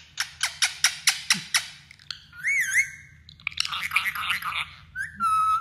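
Parakeet calling: a quick run of about eight sharp clicks, then a wavering whistled call, a stretch of harsh raspy chatter, and a steady whistle near the end.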